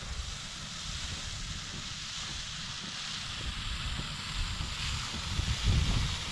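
Wind buffeting the microphone on an open frozen lake: a steady low rumble with a hiss over it, gusting louder near the end.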